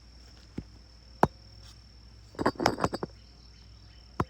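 Knocks and a short rattling clatter of a chainsaw being handled: a sharp knock a little over a second in, then about half a second of clatter past the middle, and another knock near the end. A steady high-pitched whine runs underneath. The saw's engine is not running.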